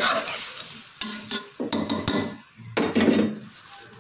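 A metal spoon stirring and scraping rice and fried chickpeas around a steel pot, with hot oil sizzling underneath. Several sharp scrapes and clinks, the loudest about three seconds in.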